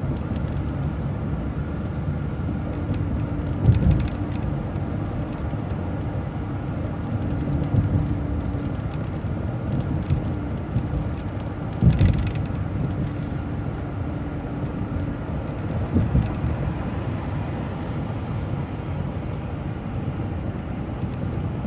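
City transit bus running along the road, with steady engine and road rumble, a faint steady whine through the middle, and a few short thumps from bumps.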